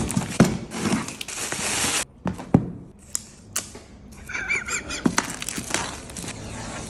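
Smartwatch box and packaging being handled: rustling for the first two seconds, then several sharp clicks and taps, a short warbling squeak about four seconds in, and more rustling.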